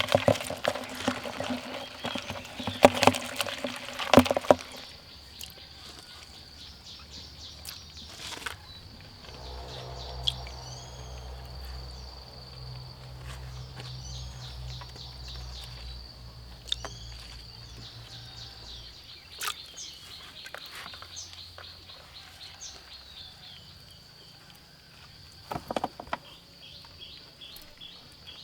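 Rural outdoor ambience: insects trilling steadily with a high pulsing chirp, and short bird calls here and there. A few sharp knocks and clatter in the first few seconds, and a low steady hum for about ten seconds in the middle.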